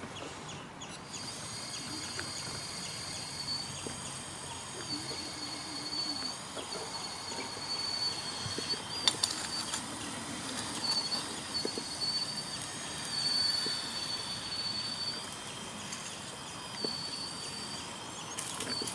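Electric drive of a 1:16 RC Komatsu PW180 model excavator whining high and thin in stop-start runs of one to two seconds as its arm and upper body move. A couple of sharp clicks about nine seconds in.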